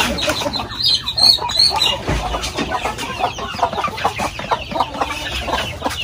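A flock of Shamo gamefowl clucking, with many short clucks overlapping and a few higher calls about a second in.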